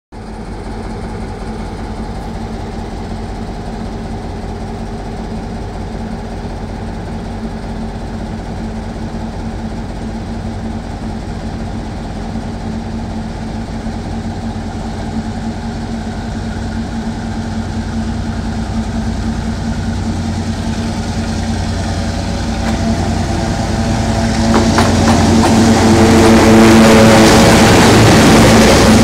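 Steady running of diesel locomotive engines, then a GR12 diesel locomotive hauling a freight train of hopper wagons approaches and passes close by. The sound grows louder from about 22 seconds in and is loudest over the last few seconds as the locomotive and its wagons roll past.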